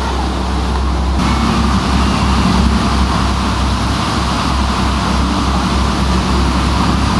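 Motor yacht's engine running with a steady low drone. The sound steps up and grows fuller about a second in.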